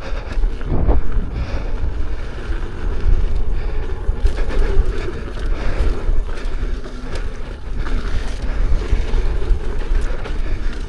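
Wind buffeting the microphone and a low rumble from an electric unicycle riding fast over a dirt trail, with scattered knocks from bumps and a faint wavering hum.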